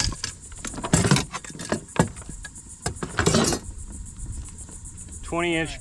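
Clicks and rattling clatter of a lip-grip tool, its lanyard and kayak gear as a caught black drum is lifted and handled, in two short noisy bursts about a second in and just past three seconds. Insects keep up a steady high buzz behind.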